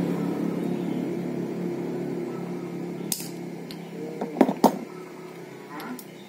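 Sharp metallic clicks and snaps from a hand-held key-cutting plier being squeezed on a key blank, loudest a little over four seconds in, with one more click near the end. A vehicle engine hums underneath and fades away.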